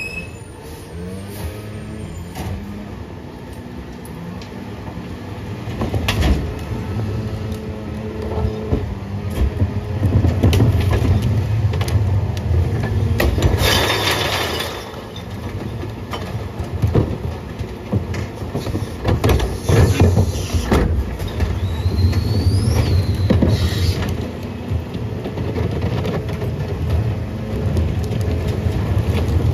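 Peterbilt 520 garbage truck's diesel engine running and revving up at times to drive the Heil rear loader's hydraulics, as the cart tipper empties a yard-waste cart into the hopper and the packer blade cycles. About halfway there is a rush as the load falls into the hopper, with clanks and knocks from the cart and packer throughout.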